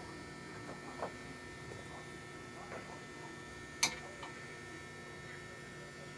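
Steady low electrical hum with a few faint clicks and one sharp click nearly four seconds in.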